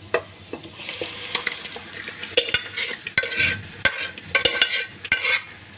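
Boiled, mashed vegetables tipped into a hot pan of spiced onions and capsicum, sizzling. From about halfway through, a steel ladle stirs them in with repeated scrapes against the pan.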